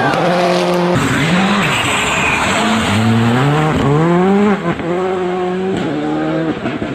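Rally car engine at full throttle, its pitch climbing steeply through the revs and dropping sharply at gear changes, about four and a half and six and a half seconds in.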